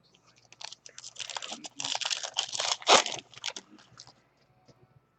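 Trading-card pack wrapper crinkling and tearing as it is opened. The sound starts about a second in, runs for about two and a half seconds, and has one sharp snap near the end.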